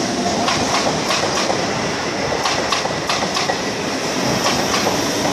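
Suburban electric multiple-unit train running past, its wheels clacking over the rail joints in an irregular run of sharp clicks over a continuous rumble, with a steady high hiss.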